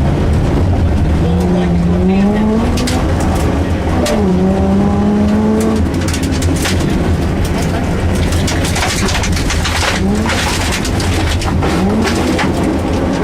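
Rally car engine heard from the cabin, revving up in rising pulls that drop back at each gear change, over a steady loud drone. Frequent sharp clicks and rattles run through it, typical of stones striking the car on a gravel stage.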